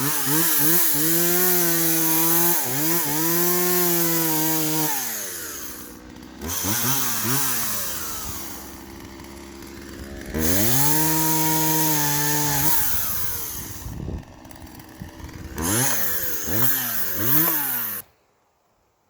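Poulan two-stroke chainsaw repeatedly revving up and held at full throttle in cuts, dropping back to a low idle between them; the owner finds its chain really dull. The sound cuts off abruptly about a second before the end.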